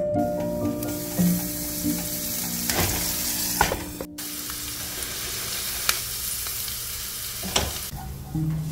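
Food sizzling as it fries in a hot pan, a steady hiss broken by a few sharp clicks. The sizzle stops shortly before the end, and soft background music is heard in the first seconds and again at the end.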